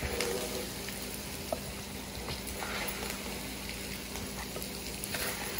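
Faint sizzling of hot oil in a just-turned-off karahi of mutton karahi, over a low steady hum, with a faint tick about one and a half seconds in.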